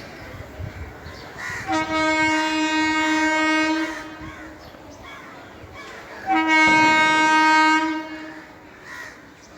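Locomotive horn sounding two long blasts of about two seconds each, a few seconds apart, each on one steady pitch.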